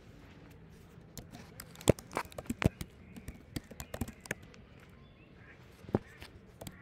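Computer keyboard typing: an irregular run of key clicks for about three seconds, then a lone keystroke near the end.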